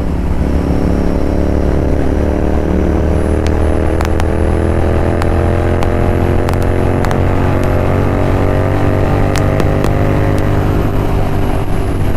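Royal Enfield Continental GT 650's 648 cc parallel-twin engine, breathing through a Red Rooster aftermarket exhaust, pulling at highway speed. Its pitch climbs slowly for about ten seconds, then holds steady, with a few faint sharp clicks along the way.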